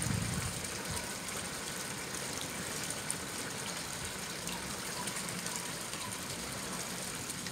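Steady rush of rain and running water.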